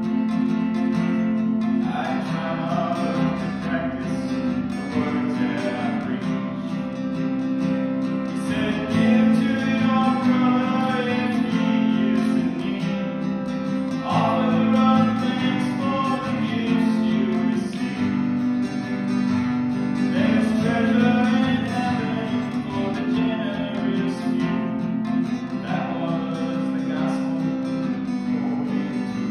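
A man singing in phrases while strumming an acoustic guitar.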